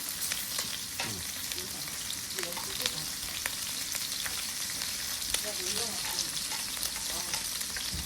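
Meat sizzling in its own fat on a hot grill: a steady crackle with many small pops of spitting fat.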